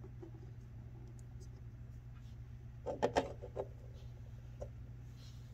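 A hard-boiled egg and a raw egg spinning on a glass-top stove, with a few light clicks about three seconds in as a hand stops them, over a steady low hum.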